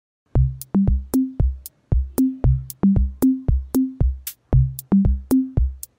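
Electronic music with a drum-machine beat: low kick thuds, sharp high ticks and a bass line stepping up and down between a few notes, starting about half a second in.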